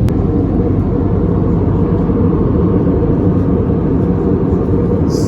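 Steady jet engine and airflow rumble inside the cabin of an Airbus A320neo in flight, with one sharp click just after the start.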